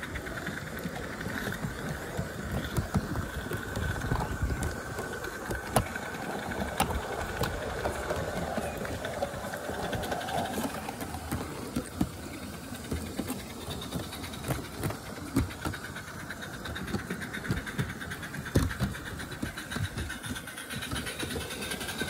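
Roundhouse Jennie live-steam garden-railway locomotive running along the track, a rapid stream of small exhaust chuffs mixed with the clatter of wagon wheels on the rails, heard from a wagon it is hauling.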